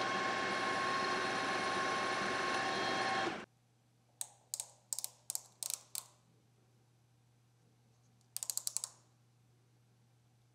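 Precision Matthews PM-1440GT metal lathe running a skim cut, a steady mechanical whine that cuts off suddenly about three and a half seconds in. Then a string of sharp single clicks, and near the end a quick burst of rapid clicks.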